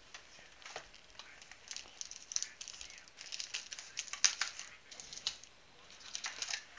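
Cardboard hobby box and foil-wrapped trading-card packs being handled: irregular rustling, crinkling and light clicks as the packs are pulled out of the box and set down, loudest about four seconds in.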